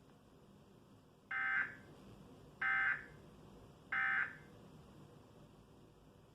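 Emergency Alert System end-of-message code: three short bursts of SAME digital data tones, a buzzy warble, sent about 1.3 seconds apart to close the monthly test broadcast.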